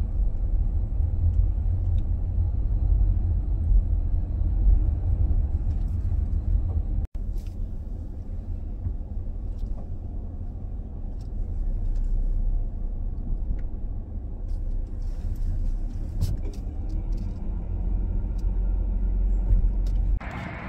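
Steady low rumble of a minivan's engine and road noise, heard from inside the cabin. It breaks off for an instant about seven seconds in.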